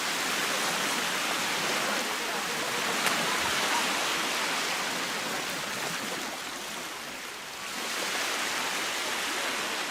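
Baltic Sea surf: small waves breaking and washing up the beach in a steady hiss that swells and eases, dipping briefly near the end before the next wave comes in.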